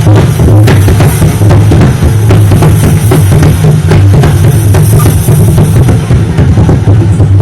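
Srikhol, the two-headed clay drum of Bengal, played by hand in a fast, dense, unbroken stroke pattern imitating a running train, with a steady deep low tone underneath.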